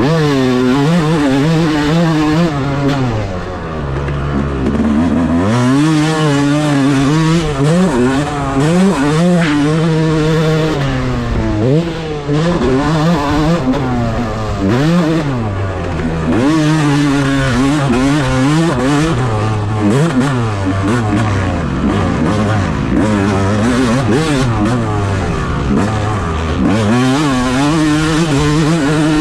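Dirt bike engine being ridden on a motocross track, revving up and falling back again and again as the rider works the throttle. It drops to a low, steady idle about four seconds in before climbing again. Heard from a camera mounted on the rider's helmet.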